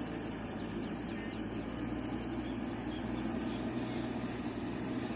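JCB 3DX backhoe loader's diesel engine running steadily under work.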